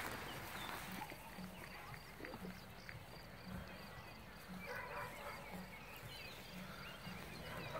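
Faint outdoor ambience with young Great Danes panting and moving about on their leads.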